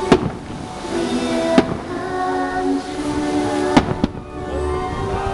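Aerial fireworks bursting with three sharp bangs, one near the start, one about a second and a half in and one near four seconds in, over show music with long held notes.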